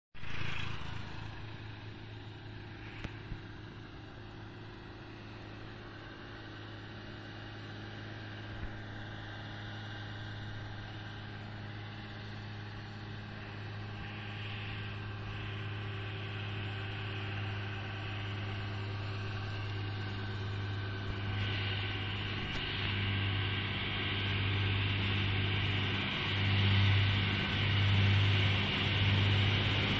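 Diesel engine of a large multi-axle mobile crane driving closer, a steady low drone that grows louder, swelling and dipping over the last few seconds.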